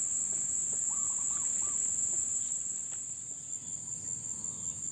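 Steady, high-pitched chorus of crickets or similar insects, with a few short, faint chirps about a second in.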